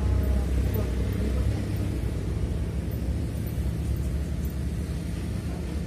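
Low, steady rumble of motor engines.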